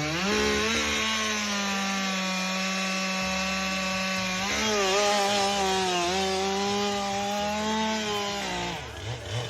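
Two-stroke chainsaw running at high revs, cutting maple wood; its pitch sags briefly a few times as the chain bites. It drops away near the end as the throttle is released.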